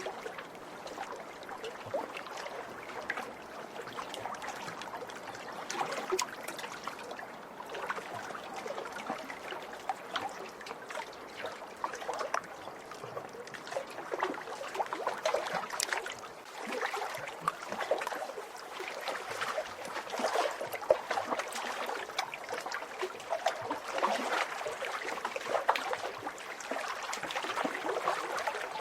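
Small lake waves lapping and splashing against the shore, an irregular run of small sharp splashes that never lets up.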